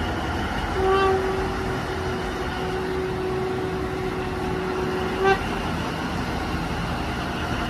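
Caterpillar 789D mining haul truck: its diesel engine runs steadily while its horn sounds one long blast of about four and a half seconds, starting about a second in and cutting off sharply.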